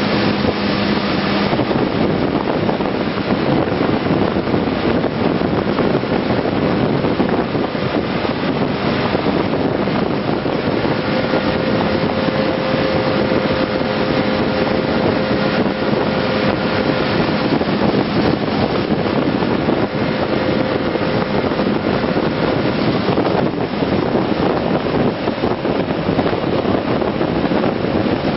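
Heavy wind rush over the microphone of a BMW K1200S motorcycle at road speed, with the bike's inline-four engine running steadily under it.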